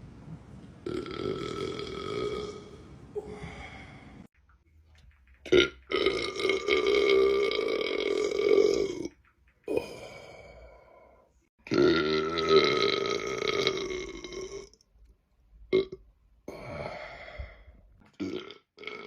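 Men burping: three long, drawn-out burps of about three seconds each, with several short burps in between.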